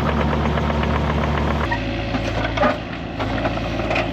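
Excavator engine running steadily. About a second and a half in, the engine note changes abruptly, and short knocks and cracks then sound over it.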